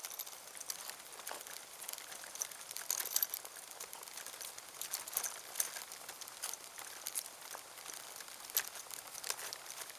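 Irregular crunching and crackling of grit and dry leaves on a tarmac lane as the low camera is moved along it, sharp crackles over a faint hiss.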